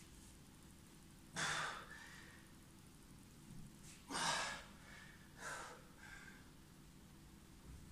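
A man breathing hard from exertion: three forceful exhales, about a second and a half in, at four seconds and at five and a half seconds, the middle one the loudest.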